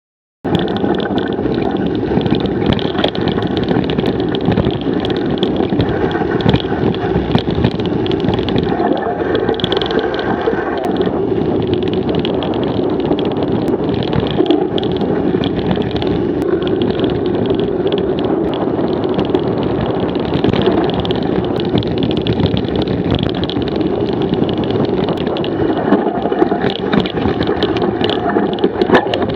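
A mountain bike riding fast down a dirt singletrack, heard through an action camera mounted on the rider: a steady rush of wind and tyre noise with the frame and parts rattling and clicking over the bumps. It starts abruptly about half a second in.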